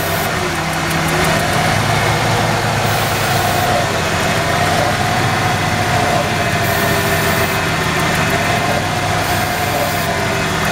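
A 1994 Ford 4.9L inline-six engine idles while starting fluid is sprayed around the intake gaskets in four hissing aerosol bursts. The idle speed slowly rises and falls as the ether is drawn in, the sign of a vacuum leak at the gasket between the throttle body and the plenum.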